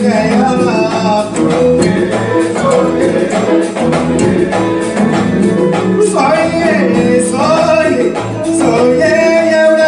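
Live band music with congas, piano, saxophone and guitar, and a voice singing over it.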